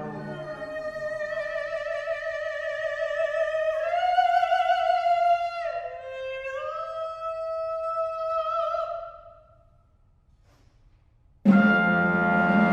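A solo classical voice sings long held notes with vibrato, unaccompanied, stepping up and then down in pitch as the preceding brass chord dies away. After a pause of about two seconds, the full chamber ensemble, brass to the fore, comes in suddenly with a loud held chord near the end.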